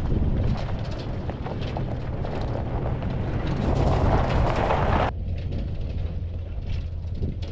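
2007 Toyota FJ Cruiser's V6 engine running as the truck drives slowly over loose gravel and dirt, with small stones ticking and crunching under the tyres. A rushing noise swells from about three seconds in and cuts off suddenly about five seconds in, while the low engine hum carries on.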